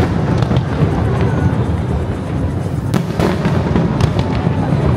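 Aerial fireworks bursting in quick succession close by: a continuous booming rumble broken by sharp cracks, the sharpest about three seconds in and again around four seconds.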